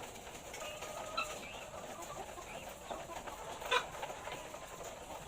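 A flock of laying hens clucking in overlapping short calls, with one sharp click about three and a half seconds in.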